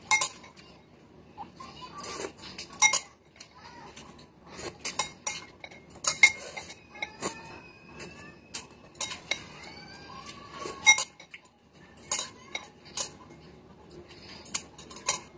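Eating utensils clinking irregularly against a ceramic bowl of noodles, a dozen or so sharp clinks, with slurping and chewing noises between them.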